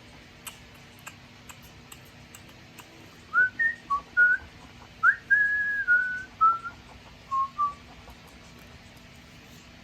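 A person whistling a short melody of about ten clear notes, some sliding in pitch, starting about three seconds in and ending near eight seconds.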